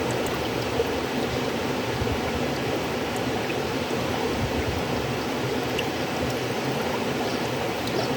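Flowing river water: a steady, even rush of a stream with faint scattered splashes and droplet ticks.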